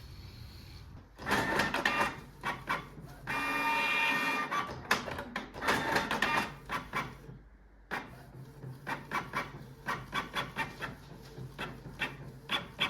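Canon Pixma G3420 inkjet printer at work, its paper feed and print-head carriage clicking and whirring. About three seconds in comes a brief steady whine. After a short pause in the second half comes a run of sharp ticks.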